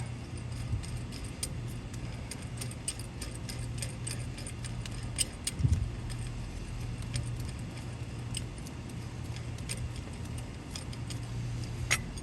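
Scattered light metallic clicks from a wrench tightening a brake caliper bolt, over a steady low hum, with a soft thump about halfway through.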